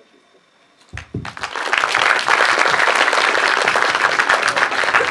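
Audience applause: after about a second of quiet, many people start clapping and it quickly builds to steady, dense clapping.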